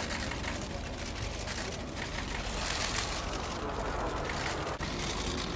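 Jet noise from RAF Red Arrows BAE Hawk T1 trainers flying a formation display: a steady rushing sound with no clear pitch.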